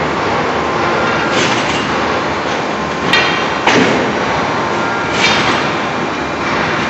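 Heavy forging machine and its power unit running with a loud steady noise, cut by four sharp metallic clanks, one of them ringing, as a red-hot billet is placed on the die.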